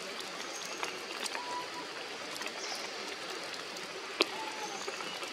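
Rain falling through forest foliage: a steady hiss with scattered drops tapping close by, one sharp tap about four seconds in.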